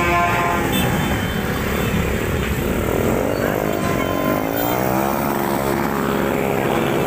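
Several motorcycles riding past close by, their engines running together, with engine pitches rising and falling as they go by.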